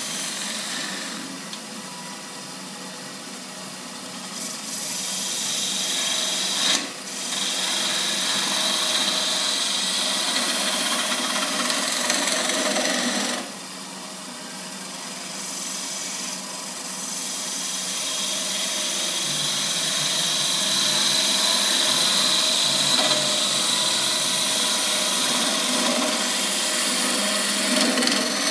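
Wood lathe running while a hand-held turning tool cuts thin shavings from the spinning wall of a wooden goblet, a steady scraping cut that drops away from about one to four seconds in and again for a few seconds in the middle, where the tool comes off the wood. These are light finishing cuts on a goblet wall thin enough for light to shine through.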